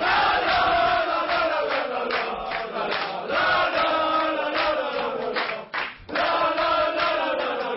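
A group of footballers chanting a victory song together, clapping in time about twice a second. The chant breaks off for a moment just before six seconds in, then picks up again.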